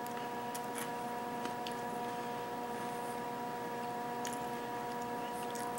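Quiet room tone: a steady electrical hum made of several pitched tones over faint hiss, with a few faint short clicks scattered through it.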